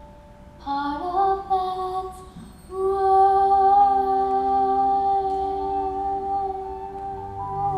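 A woman singing a stage-musical song over quiet accompaniment. Her voice comes in about a second in with a few short phrases, then holds one long note for several seconds.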